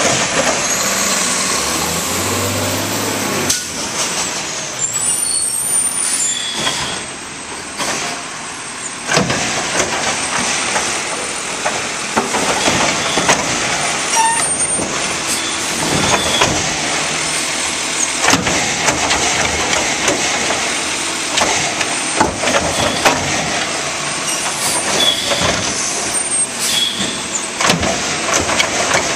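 Labrie automated side-loader garbage truck at work: diesel engine running while the hydraulic arm sets one cart down and lifts the next, with repeated knocks and clatters from the carts and arm and hisses of the air brakes.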